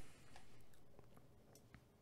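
Near silence: room tone with a few faint clicks of a computer mouse.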